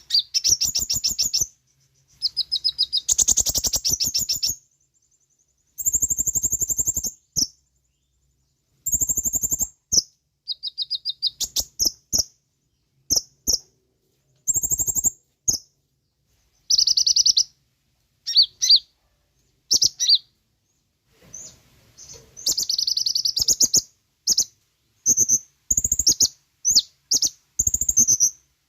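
Kolibri ninja sunbird singing a loud, high-pitched song of rapid chirps and fast trills in bursts of about one to two seconds, separated by short pauses. The bursts come quicker and more tightly packed after about 22 seconds. It is a full, busy song of the kind played as a lure to get a kept bird to answer.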